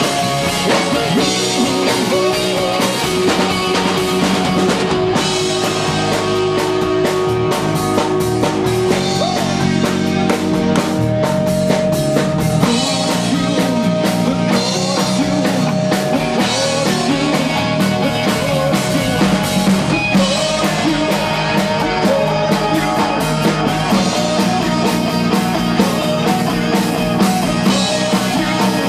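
A rock band playing live: a drum kit keeping a steady beat under bass guitar and a singer's voice.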